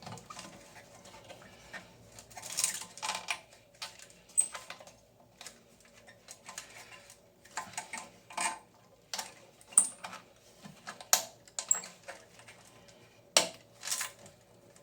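Irregular clicks and knocks of hard toilet tank parts being handled, a dozen or so separate taps spread unevenly with quiet gaps between them.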